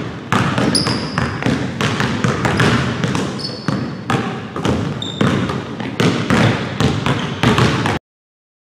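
Basketballs bouncing on a hardwood gym floor in quick, irregular dribbles, with a few short sneaker squeaks. The sound cuts to dead silence about eight seconds in.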